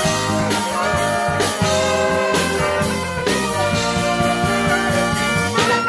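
Live band with a saxophone section of alto, tenor and baritone saxes playing held chords in harmony over drums and a bass line. Near the end the horns slide up to a higher held note.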